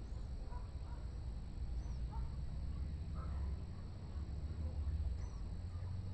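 Faint, scattered bird calls and short chirps over a steady low rumble.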